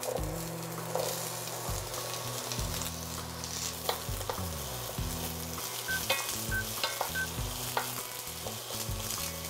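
Diced onion and garlic sizzling as they fry in oil in a copper-clad skillet, stirred with a wooden spoon that knocks and scrapes against the pan now and then.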